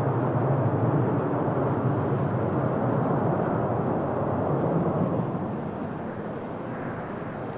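Jet engine noise from a landing Boeing 737-900ER's CFM56 engines: a steady rumble that eases off somewhat about five seconds in.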